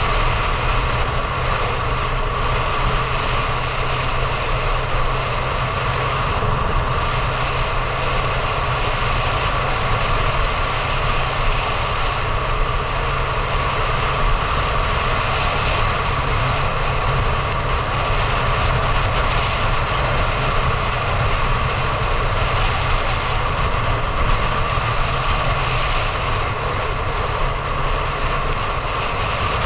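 Motorcycle engine running at a steady road speed, with wind rushing over the camera microphone.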